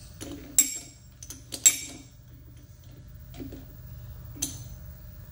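A chuck key turning in a metal chuck to grip a shaft lightly: a few sharp metallic clinks and clicks, the two loudest under a second and just under two seconds in, with fainter clicks later, over a steady low hum.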